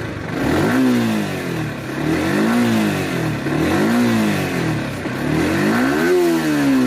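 Yamaha R15M's 155 cc single-cylinder engine revved in four throttle blips, each rising in pitch and falling back toward idle. Its tappets have just been adjusted, and the owner judges it to sound very good now.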